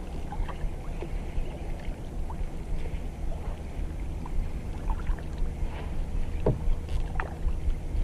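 Kayak paddling: paddle blades dipping and splashing in the water, with scattered drips and a couple of light knocks, over a steady low rumble.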